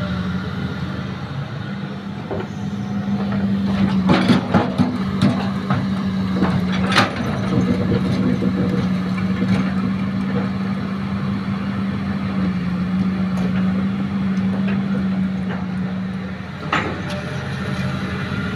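Heavy diesel earthmoving machinery running steadily, with several sharp knocks: a cluster about four to five seconds in, one about seven seconds in, and one near the end.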